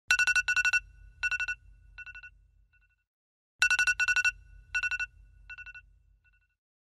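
Telephone ringtone: a rapid trilling ring, two loud rings followed by two fainter, fading repeats, and the whole pattern heard twice.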